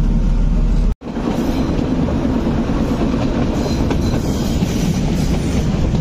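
Metre-gauge train running, wheels clattering on the track over a steady rumble. The sound drops out for a moment about a second in, then resumes.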